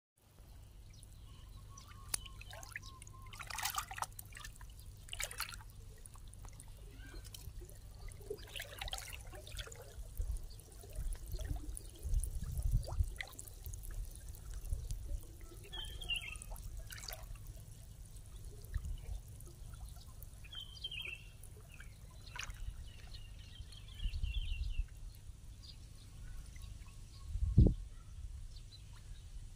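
Muddy river water trickling and splashing as a monkey rubs a wet dog sitting in it, with scattered short splashes. A brief dull thump near the end is the loudest sound.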